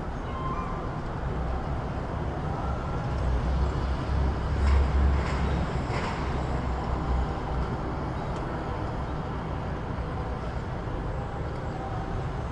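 City street ambience: steady traffic noise with a low rumble that swells about four seconds in as a vehicle passes, then settles. A few light clicks fall near the middle.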